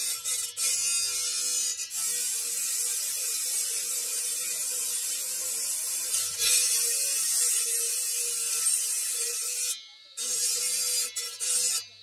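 Stone-cutting disc on a bench-mounted electric motor grinding into a block of onyx marble, a steady harsh rasping hiss over the motor's constant hum. It drops away briefly near the end and then resumes.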